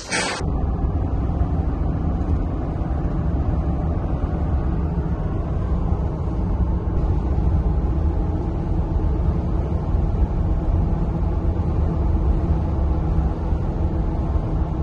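Jeep Gladiator driving on a trail: a steady low rumble of engine and road noise.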